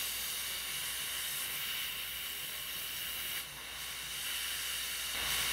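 Dental suction hissing steadily, dipping briefly a little past halfway.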